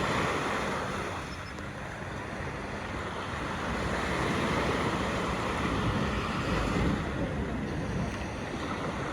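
Wind buffeting the microphone over the sound of sea water and surf, a steady rushing noise.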